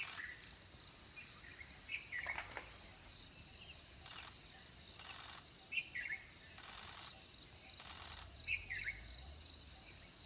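Forest ambience: a steady high-pitched trill of crickets or other insects, with short bird chirps about four times and a few brief rasping bursts.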